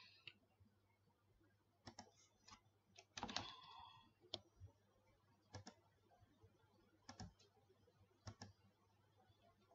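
Faint computer mouse clicks, single and in quick pairs every second or so, selecting objects to trim in AutoCAD, with a quick run of scroll-wheel clicks about three seconds in as the view zooms. A steady low hum sits underneath.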